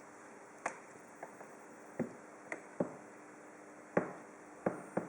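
About eight separate sharp clicks and light knocks, irregularly spaced, each dying away quickly, against a quiet steady background.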